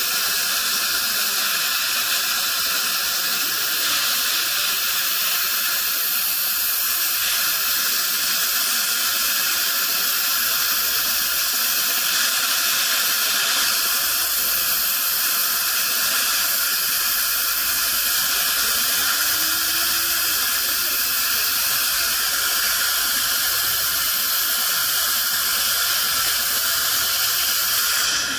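Dental equipment in the mouth hissing steadily without a break: air-and-water spray and suction while a tooth is prepared for a restoration.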